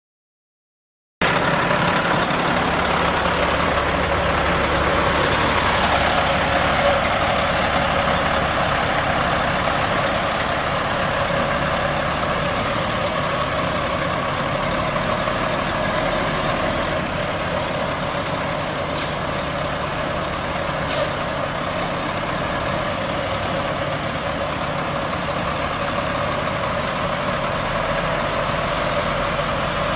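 Caterpillar C12 inline-six diesel engine of a 2000 Peterbilt 377 semi truck running steadily, the sound starting abruptly about a second in.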